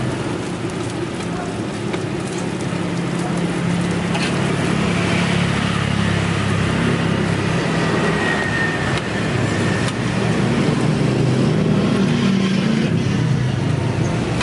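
Steady road traffic hum over oil sizzling as small tapioca cireng sticks deep-fry in a wok, with a few clinks of the metal spatula and wire strainer against the wok.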